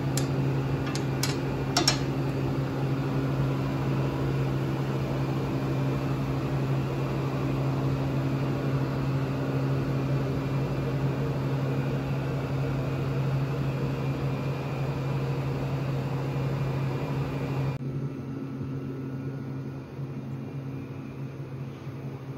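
Steady low machine hum, with a few light clicks in the first couple of seconds; about 18 seconds in the higher hiss drops away while the hum carries on.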